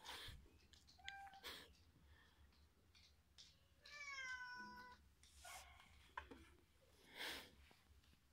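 A cat meowing: one drawn-out meow of about a second near the middle, after a shorter call about a second in. A few soft rustles come in between.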